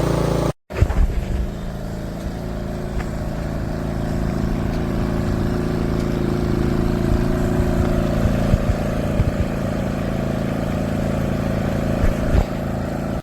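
Small portable inverter generator engine running steadily, with irregular low thumps on the microphone. The sound drops out briefly about half a second in.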